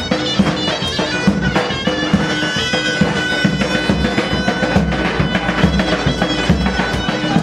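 Folk dance music: a reedy wind instrument playing a melody over a steady drum beat.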